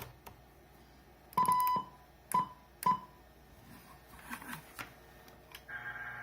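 Three short electronic beeps from a CB radio as the channel is changed. Near the end a steady buzzing hum comes in over the monitored transmission: the buzz the owner keeps hearing on this Cobra 29's transmit audio, whatever the mic gain.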